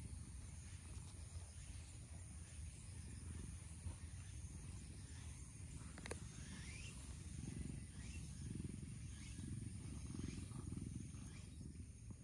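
Cat purring: a low rumble that swells and eases in even pulses and grows stronger in the second half.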